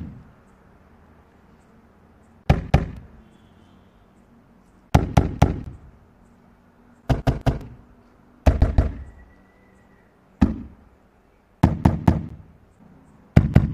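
Balloons filled with homemade flammable gas exploding one after another as a torch flame is held to them: about seven sharp bursts, each of several quick cracks, every one to two and a half seconds.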